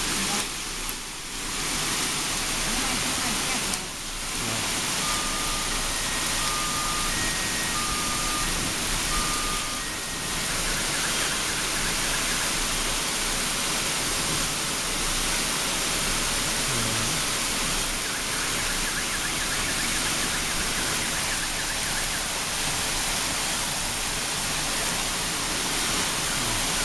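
Heavy rain mixed with hail falling steadily on a street and parked cars: a dense, even hiss. From about five to ten seconds in, a short run of electronic beeps at two alternating pitches sounds through it.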